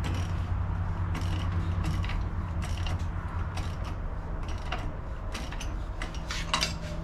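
Irregular metallic clicks and clinks of a ratchet and hand tools working the pulley installer tool that presses a metal pulley onto a power steering pump, over a steady low hum.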